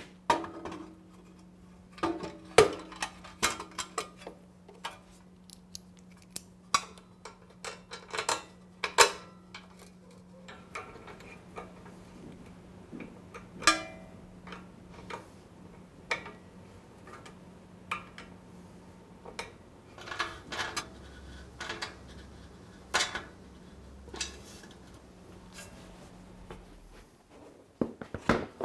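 Scattered metallic clinks and knocks of a spanner, bolts and the exhaust silencer bracket as a motorcycle silencer is refitted, over a faint steady low hum.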